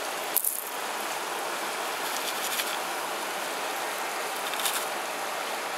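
Steady rush of a nearby river, with a few faint clicks of stones shifting as gravel is sorted by hand in a plastic scoop.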